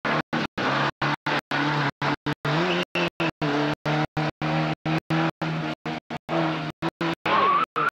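Rally car's engine running hard through a bend, its pitch shifting with the revs, with a tyre squeal near the end. The old recording's sound cuts out in short gaps several times a second.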